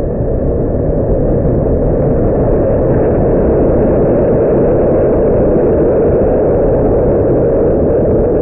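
HO-scale slot car trucks running laps on a plastic slot track: a steady whirring hum of the small electric motors and wheels on the track.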